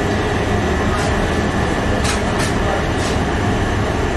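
Steady low rumble of bakery machinery running, with a faint steady whine and a few light clicks and knocks.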